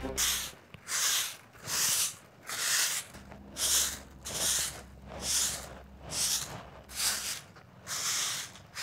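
A stiff stick broom sweeping a bare packed-earth yard: about ten even, scratchy swishes, a little more than one a second.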